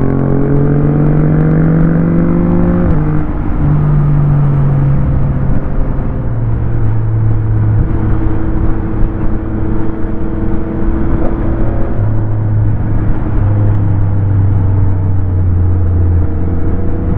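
Yamaha MT-09's three-cylinder engine pulling under throttle, its pitch rising for about three seconds and then dropping at a gear change, before settling into a steady cruise at lower pitch.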